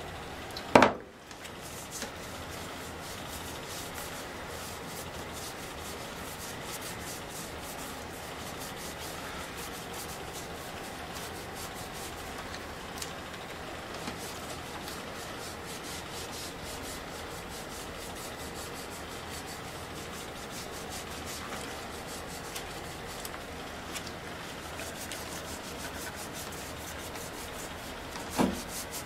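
Acetone-soaked rag scrubbed back and forth along a metal bicycle handlebar, wiping off old foam grip residue: a steady rubbing sound, with a sharp knock about a second in.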